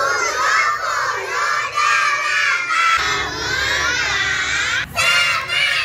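A group of young kindergarten children shouting together in chorus, in a few loud phrases with short breaks between them.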